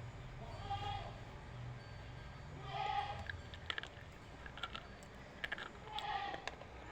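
An animal bleating three times, short high calls about two to three seconds apart, the second the loudest. In between come several sharp crunching clicks of slate pencil being bitten.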